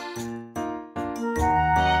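Background music: an instrumental piece of held, chiming notes that drops out briefly just after half a second, then comes back fuller with low bass notes.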